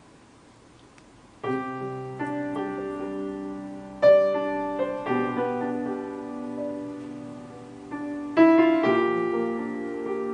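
Grand piano played solo: after about a second and a half of quiet, slow chords are struck and left to ring, a new chord every few seconds, as the opening of a ballad.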